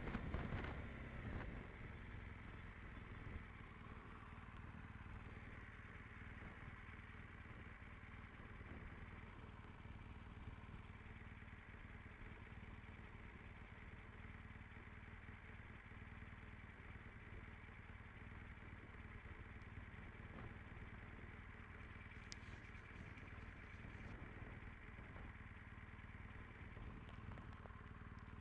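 Motorcycle engine running faintly at low, steady revs, ticking over without any revving, with a single short click a little past the middle.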